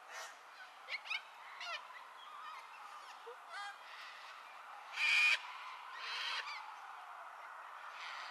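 Sulphur-crested cockatoos calling: a few short squawks in the first few seconds, then two harsh screeches about five and six seconds in, the first the loudest.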